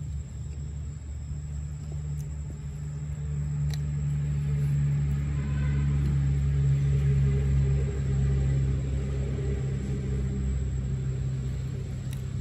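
A motor vehicle engine running with a steady low hum, growing louder through the middle and easing off toward the end.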